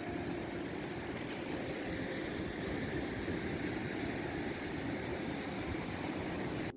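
Steady seaside noise of wind and sea, with a low even drone under it that does not change; it breaks off briefly near the end.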